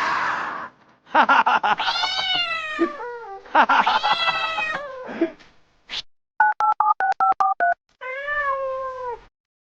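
A cat meows twice in long, wavering calls, then a quick run of about eight telephone keypad beeps follows, then one more meow. A short hiss of noise opens the sequence.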